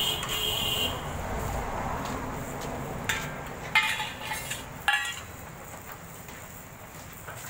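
Metal spatula clinking and scraping against a tawa griddle while a paratha is turned and pressed: a ringing clink at the start, then several sharp metallic clinks with brief ringing between about three and five seconds in, over steady background noise.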